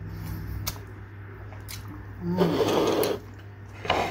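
Eating sounds at close range: a spoon clicking a few times against a plate, and a short louder rough mouth sound about two seconds in, over a steady low electrical hum.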